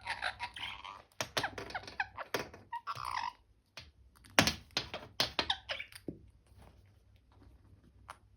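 Indian ringneck parrot chattering softly, mixed with several sharp taps and clicks; the loudest knock comes about four and a half seconds in, and the sounds die away after about six seconds.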